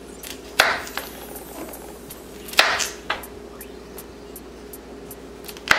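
Kitchen knife chopping broccoli on a wooden cutting board: three sharp knocks of the blade striking the board, a couple of seconds apart, the last near the end, each followed by a lighter tap.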